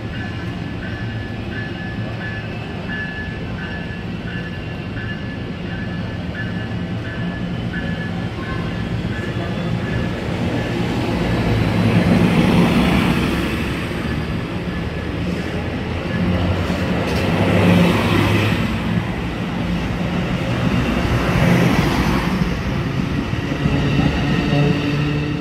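Amtrak Pacific Surfliner passenger train at the station, its diesel locomotive engine running and building in loudness as the train gets under way. A bell rings at about two strokes a second through the first several seconds.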